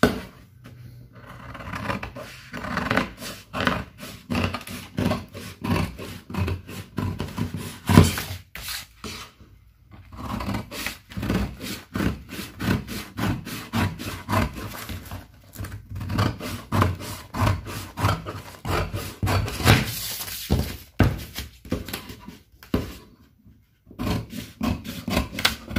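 Large tailor's scissors cutting through doubled pattern paper: a long run of quick crunching snips, with the paper rustling as it is turned and a couple of brief pauses.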